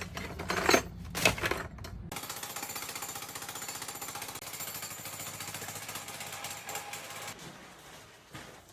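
A couple of sharp knocks, then a handheld power tool starts about two seconds in and runs for about five seconds with a fast, steady hammering rattle, fading out near the end.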